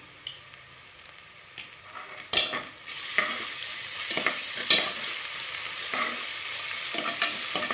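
Onions and ginger-garlic paste frying in oil in an aluminium pressure cooker, stirred with a slotted metal spoon. A sharp clatter of spoon on pot comes a little over two seconds in. After it comes a steady sizzle with repeated scrapes of the spoon against the pot.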